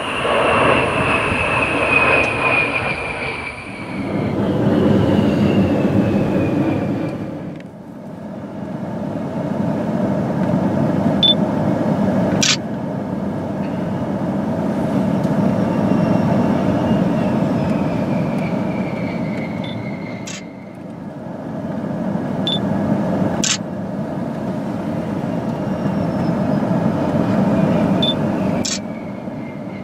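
A-10 Thunderbolt II's twin TF34 turbofan engines rumbling as the jet flies low, with a high whine that falls in pitch as it goes by, several times over. A few sharp clicks break in along the way.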